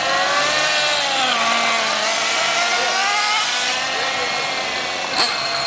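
Radio-controlled model race cars' small engines buzzing at high pitch, several at once, the pitch rising and falling as the throttle is opened and closed. A short knock about five seconds in.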